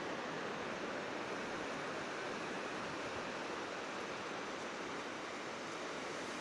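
Steady hiss of surf washing on a sandy beach, even and unbroken, with no separate wave crashes.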